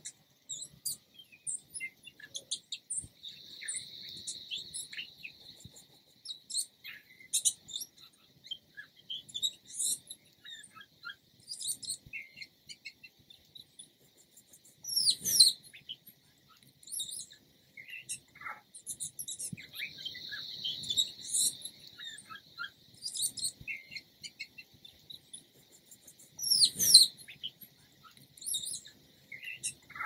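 Scrub-jay singing its soft song: a medley of quiet, sweet, high notes and short chirps, with two louder sweeping notes, one about halfway through and one near the end.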